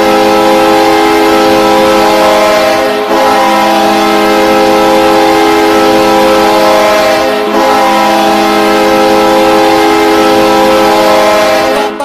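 New York Islanders' goal horn, a deep air horn sounding a chord of several steady tones, blown in three long blasts with short breaks about three and seven and a half seconds in, stopping near the end.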